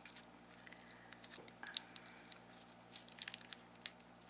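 Crinkly wrapper of a twist-wrapped hard candy being untwisted and opened by fingers: faint, scattered crackles, a couple of louder ones partway through.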